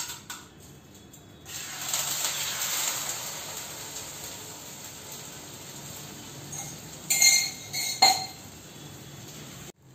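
Beaten egg poured onto a very hot tawa, sizzling loudly from about a second and a half in and slowly dying down. It starts after a few light clinks of a spoon in a steel tumbler, and near the end come two sharp clinks of steel utensils.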